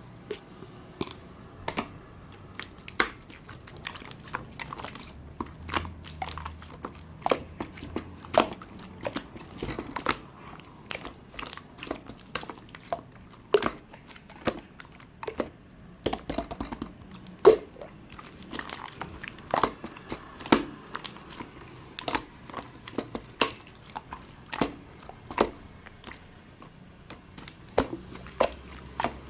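Slime being squeezed and stretched by hand, giving off sharp, irregular wet clicks and pops, a few each second.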